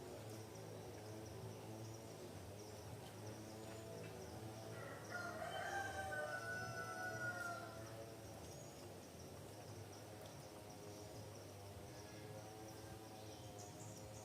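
A rooster crows once, about five seconds in, one drawn-out call of two to three seconds that falls slightly in pitch at the end, over a steady high chirring of insects.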